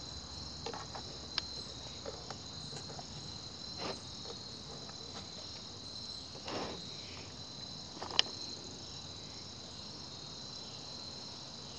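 A few faint clicks and taps of plastic parts being fitted back onto a gas leaf blower's carburetor and air-filter housing, the sharpest and loudest about eight seconds in, over a steady high-pitched chirring of insects.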